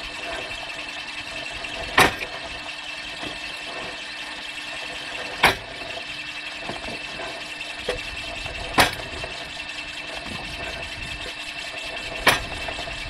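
Homemade gearbox-driven firewood splitter running with a steady mechanical hum and whine. Its chopping blade strikes and splits wood four times, about every three and a half seconds, with a lighter knock between the third and fourth strikes.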